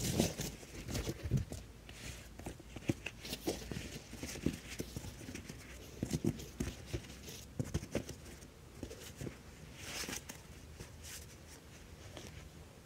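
Irregular soft knocks and rustling of a foam sleeping pad being handled and folded up by hand.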